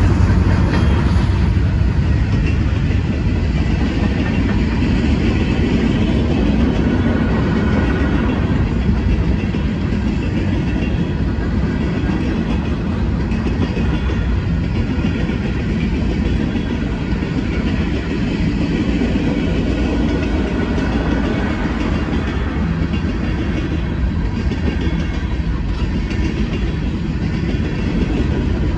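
Freight train passing close by: a string of mixed freight cars rolls past on steel wheels on the rails in a steady, loud noise. It is a little louder in the first couple of seconds as the trailing EMD SD70M diesel locomotive goes by.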